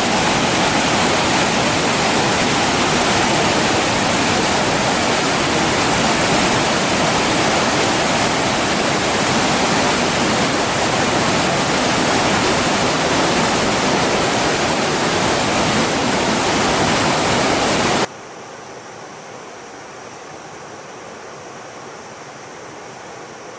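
Mountain stream rushing over rocks, a loud, steady rush of water. About 18 seconds in it drops abruptly to a much quieter, thinner rush.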